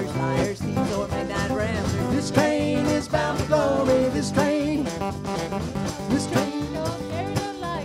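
Live band playing an upbeat tune on drum kit, guitars, bass and keyboard, with a lead melody line wavering over the steady beat.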